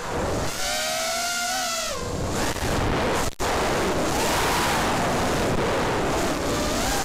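FPV quadcopter's Cobra 2204 2300 kV brushless motors spinning 4-inch tri-blade bullnose props, heard from the onboard camera: a whine that rises and falls in pitch with the throttle over a heavy rush of wind and prop wash. The sound cuts out briefly about three and a half seconds in.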